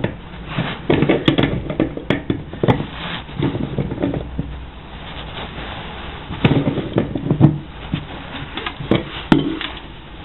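Irregular bumps, knocks and rustles of handling and movement, with no steady sound behind them. The sounds carry the echo of a small tiled bathroom.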